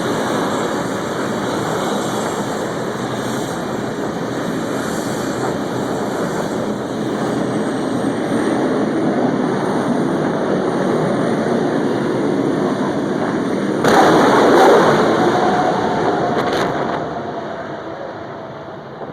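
Jet turbine engine of an S10 pickup dragster running hard through its quarter-mile pass, a steady loud rush. About fourteen seconds in it jumps suddenly louder, then fades away near the end.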